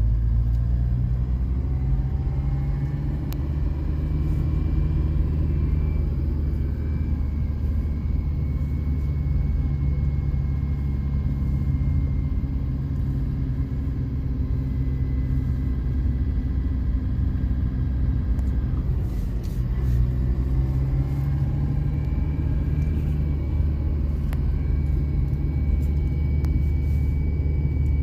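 Car engine and road noise heard from inside a moving car: a steady low rumble, with the engine note rising as the car picks up speed near the start and again about twenty seconds in.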